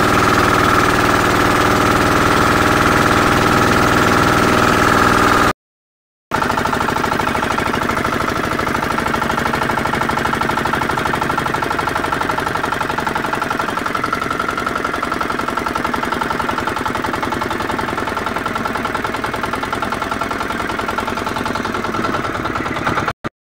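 Motorized boat's engine running steadily under way, broken by a short silence about five and a half seconds in.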